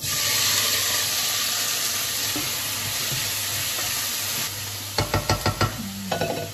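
Diced vegetables tipped into a hot pot sizzle loudly at once, and the sizzle slowly dies down over a few seconds. About five seconds in, a utensil stirring in the pot gives a quick run of clicks and scrapes against the metal.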